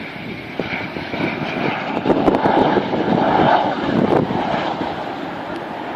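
Jet noise from a Czech L-159 ALCA's single F124 turbofan as it flies its display, a steady rushing roar that swells about two seconds in and eases off again toward the end.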